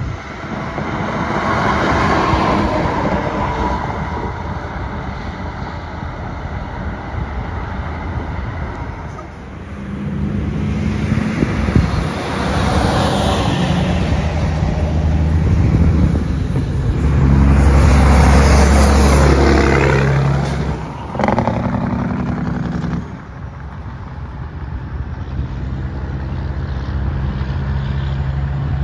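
Semi trucks driving past close by, their diesel engines running under load and their tyres rushing on the pavement. The loudest truck goes by a little past halfway through.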